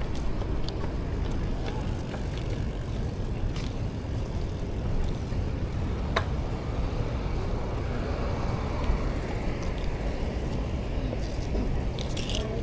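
Outdoor road noise: a steady low rumble of vehicles running past, with a sharp click about six seconds in.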